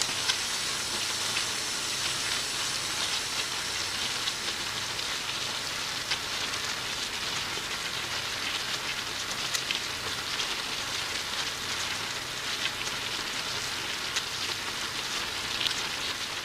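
Food frying in hot oil: a steady sizzle with scattered small pops and crackles.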